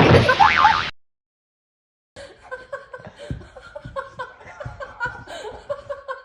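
A loud burst of sound that cuts off abruptly about a second in, then after a silent gap, people laughing and chuckling.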